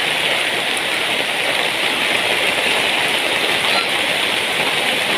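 Heavy rain pouring down steadily, a dense even hiss of water.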